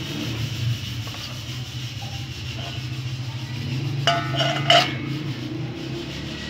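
Gas stove burner running steadily under a clay cooking pot, a low rumble. Two short ringing clinks come a little after four seconds in.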